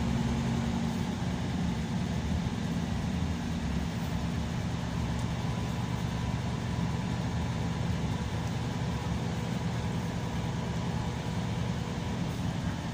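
Scania K340EB coach's diesel engine and road noise heard from inside the passenger cabin while driving, a steady low hum.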